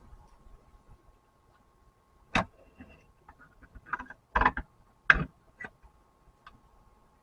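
Several sharp metal knocks and clicks from handling a lead sinker mold, scattered irregularly, with the loudest two close together a little past the middle.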